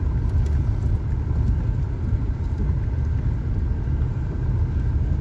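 Car driving along a narrow mountain road, heard from inside the cabin: a steady, low road-and-engine rumble.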